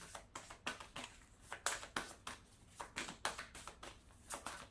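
Tarot cards being shuffled and handled: a quiet run of irregular soft taps and paper rustles, a few a second.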